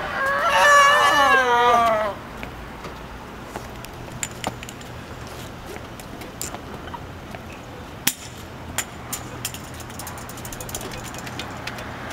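A man's loud, drawn-out yell with a wavering pitch that drops at the end, lasting about two seconds. After it comes a steady street hum with scattered sharp clacks from crutches on the pavement.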